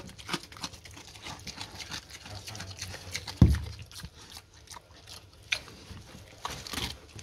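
A pig chewing and biting into pumpkin, a steady run of wet smacks and small crunches, with one dull thump about three and a half seconds in.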